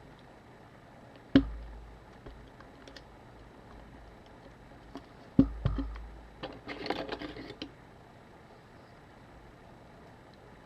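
Knocks and small clicks of a camera body and small tools being handled on a workbench during disassembly: a sharp knock about a second and a half in, two more close together a little past halfway, then a brief patter of light clicks.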